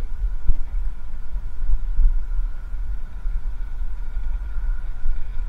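Low, uneven rumble of wind buffeting and ride vibration on the microphone of a camera carried on a moving bicycle, with a faint steady whine above it.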